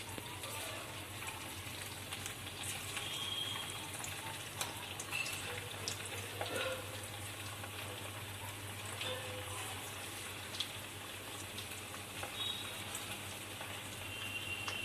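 Food sizzling in hot oil in a pan, a steady hiss with scattered pops and crackles.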